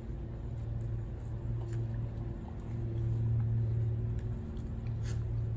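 Steady low machine hum from a running motor or engine, swelling slightly midway, with one short click about five seconds in.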